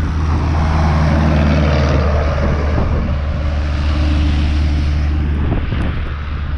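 Storm wind buffeting the microphone in a steady low rumble, with traffic hissing along a slushy street; the hiss swells in the first few seconds as a vehicle goes by.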